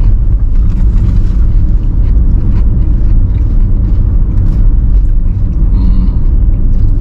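Compact rental car driving, with a steady low rumble of engine and road noise.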